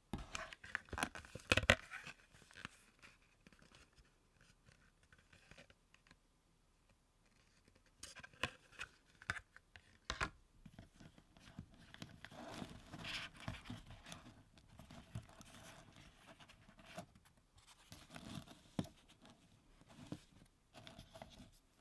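Unboxing handling noises: a stylus pen, its cardboard box and the foam insert being picked up and moved, giving scattered clicks, taps and scrapes. They come in clusters, with a quiet spell of a few seconds shortly after the start.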